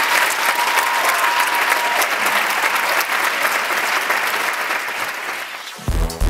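Audience applauding, easing off slightly toward the end; near the end, music with a heavy, regular bass beat cuts in.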